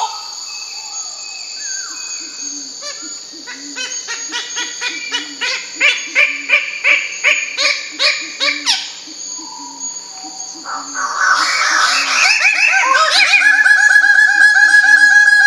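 Bird-of-paradise calling: a run of repeated calls, about two a second, growing louder, then from about two-thirds through a loud, rapid buzzing trill held on one pitch. A steady high whine runs underneath.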